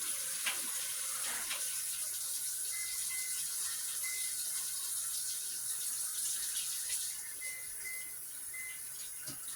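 Water running steadily from a kitchen faucet into a sink while hands are washed under it, with a few light knocks.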